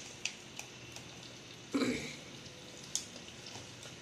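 Faint taps and clinks of spoons against steel jars and bowls as salt is scooped and added, with a louder, briefly ringing knock a little before two seconds in and a sharp tick near three seconds.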